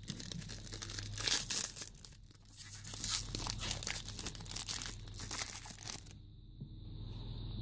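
Foil wrapper of a 2017 Select Footy Stars trading-card pack being torn open and crinkled, a dense run of crackles that stops about six seconds in.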